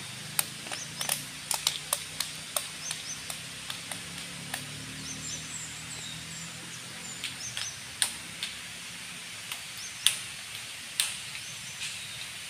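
Outdoor ambience: a steady high-pitched hiss with a faint low hum under it, a few faint bird chirps, and scattered sharp clicks or taps, most frequent in the first few seconds.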